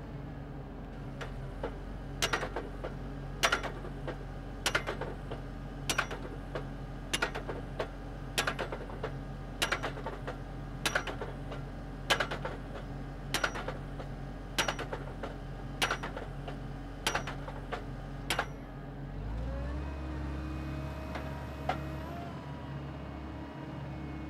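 Geoprobe DH101 automatic drop hammer on an 8040DT drill rig striking the drive rods at an even pace, about one blow every 1.2 seconds, driving a split-spoon sampler into the ground, over the steady running of the rig's engine. The blows start about two seconds in and stop after about fourteen strikes, leaving the engine running alone, slightly louder.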